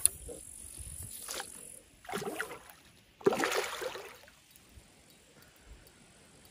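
A hooked carp thrashing and splashing at the surface beside a landing net: several bursts of splashing in the first four seconds, the loudest a little after three seconds, then quieter water.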